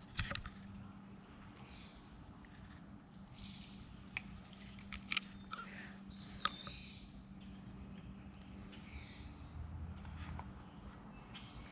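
Outdoor creek-side ambience: short high bird calls every few seconds over a steady low hum, with a few sharp clicks, the loudest about five and six and a half seconds in.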